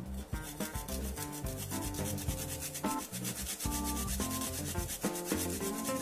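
A garlic clove grated back and forth on a plastic hand grater: a quick, even rasping of many short strokes a second. Background guitar music runs faintly underneath.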